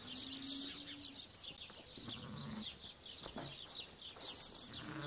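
Sheep bleating a few times, with a steady chatter of small birds chirping throughout.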